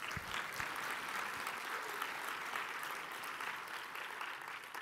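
Audience applauding, a steady patter of many hands clapping.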